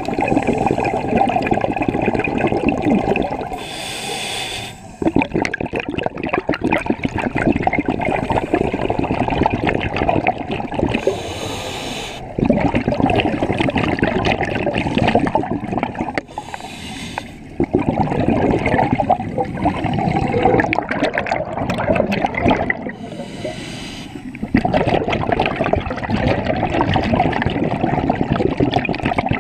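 Scuba diver breathing through a regulator underwater, heard close: four breaths, each a short hiss on the inhale followed by a long, crackling rush of exhaled bubbles.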